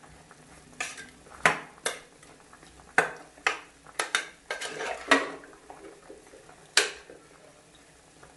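Metal spoon stirring chopped vegetables with curd in a metal pressure pan, clinking and scraping against the pan's side about ten times at an irregular pace.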